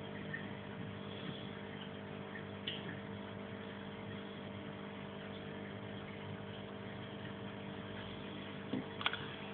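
Steady low hum of an aquarium's filter pump, with a few faint clicks near the end.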